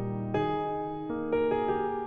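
Background music on a keyboard with a piano sound: slow, sustained chords and notes, with a new chord struck about four times in two seconds.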